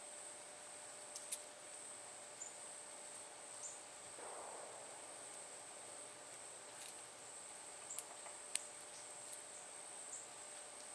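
Insects droning steadily at a high, even pitch, with a few sharp clicks and short high chirps scattered through.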